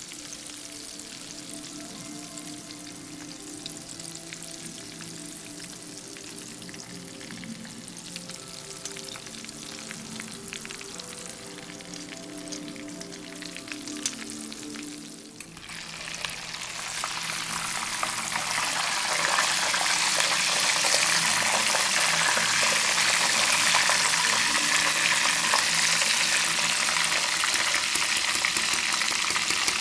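Breaded oysters deep-frying in canola oil in a small stainless saucepan, the oil bubbling and sizzling as metal tongs lift pieces out, with a click of the tongs on the pan about halfway. Just after halfway the sizzle swells into a much louder, steady hiss.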